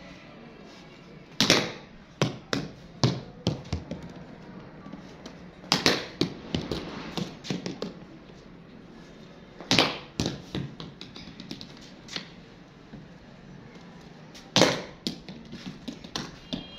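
Cricket ball knocking off a bat and bouncing on a concrete floor: four sharp knocks about four seconds apart, each followed by a run of smaller, quickening bounces.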